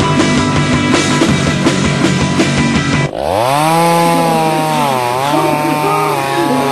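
Rock music with drums and keyboards cuts off suddenly about three seconds in. A chainsaw then revs up, its engine pitch climbing, holding and wavering up and down.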